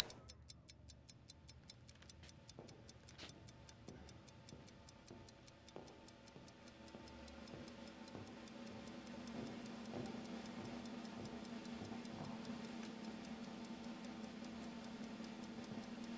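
Mechanical stopwatch ticking, rapid and even. A low steady tone swells in underneath from about halfway.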